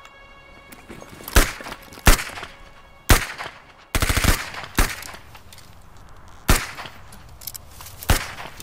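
Battle gunfire: single rifle shots every second or so, with a short burst of rapid fire just under four seconds in.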